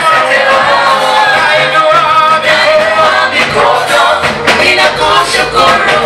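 A group of voices singing a praise song together, loud and continuous.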